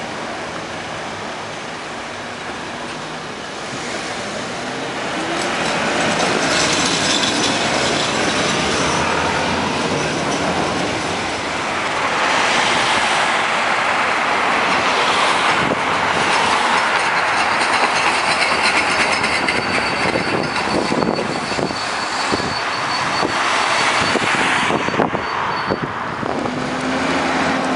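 Street trams running on their rails: steady wheel-on-rail rolling noise and running gear, growing louder as a tram draws near and staying loud. A thin high-pitched whine joins in near the end.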